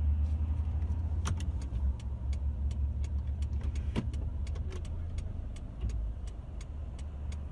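Steady low rumble of a stopped car idling, heard from inside the cabin, with faint ticks and two sharper clicks, about one second and four seconds in.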